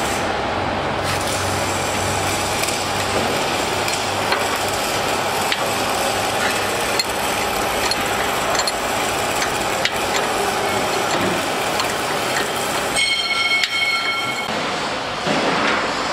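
Steady factory hall noise, with occasional light metallic clicks as a hydraulic hose fitting is worked with a wrench, and a brief high whine about 13 seconds in.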